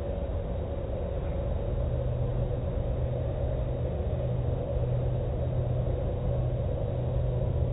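Automatic tunnel car wash running: cloth mitter curtains sweeping over a pickup amid a steady machinery rumble and hum, with a constant wash of water and cloth noise.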